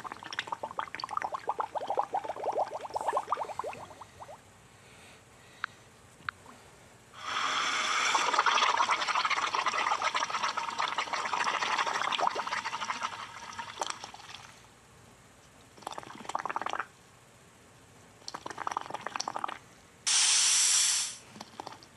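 Humpback whale sound effect: crackly clicking calls at first, then a long rushing, watery spray from about seven seconds in, and a few shorter watery rushes near the end.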